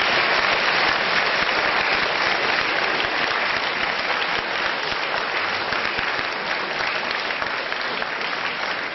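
Audience applauding a finished speech, a dense steady clapping that slowly fades.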